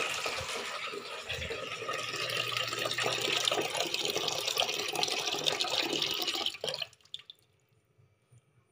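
Water running into an aluminium pot in a stainless-steel sink, filling it; the flow is shut off about seven seconds in.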